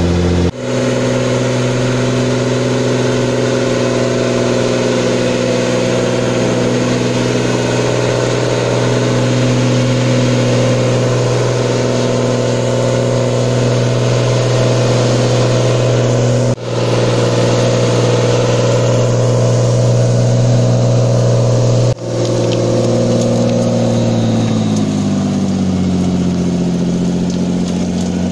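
Engine of a homemade forwarder running at high, steady revs as the machine works through deep mud, with brief breaks in the sound three times; near the end the revs fall away.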